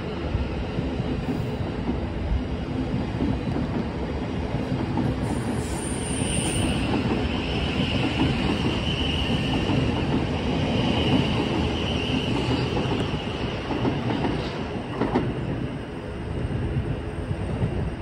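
Thameslink Class 700 electric multiple unit pulling out of the platform with a steady rumble. A high wheel squeal runs for several seconds in the middle, and a single click comes near the end.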